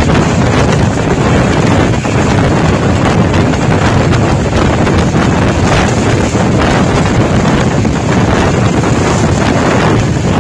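Wind rushing in at an open carriage window and buffeting the microphone, over the steady running rumble of a passenger train moving at speed.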